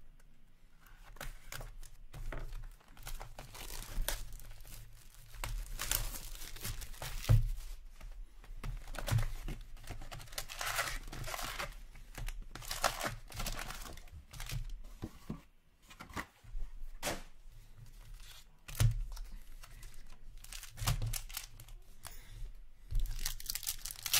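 Foil trading-card pack wrappers torn open and crinkled by hand, a run of rips and rustles that come and go.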